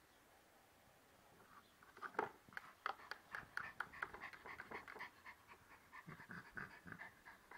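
Small Yorkshire terrier panting in quick, irregular breaths, starting about two seconds in.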